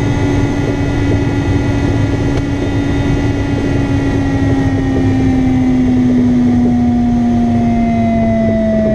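Rushing airflow over a glider on its final approach with the air brakes out, with a steady whistle that slowly falls in pitch.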